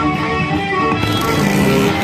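Background music led by guitar, with strummed and picked notes.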